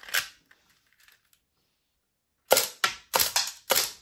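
LEGO Technic rubber-band blowback pistol firing, its slide snapping back with each shot: five sharp plastic clacks a little over a quarter second apart, starting about two and a half seconds in after near silence.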